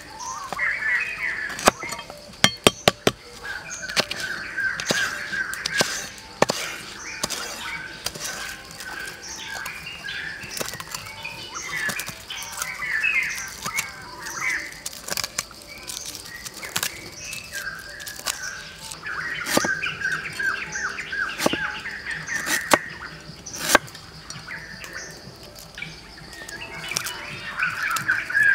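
Small birds chirping throughout, over a faint steady high-pitched hum. A cleaver knocks sharply on a wooden chopping stump as it cuts lemongrass stalks: a quick run of about five chops a few seconds in, then single chops here and there.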